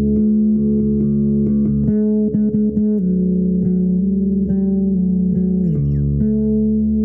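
Improvised guitar music: low notes held and ringing, shifting to new pitches with gliding slides about three seconds in and again near six seconds.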